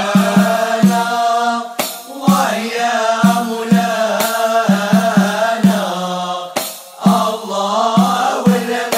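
Issawa Sufi chant: voices singing a drawn-out, wavering melody over a steady beat of hand drums.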